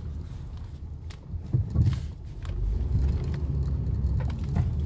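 Road rumble inside the cabin of a 2010 Acura MDX driving over potholes, with several short knocks, the loudest about one and a half to two seconds in. This is the suspension knocking over the holes, which the mechanic puts down to worn sway bar links rather than the shocks.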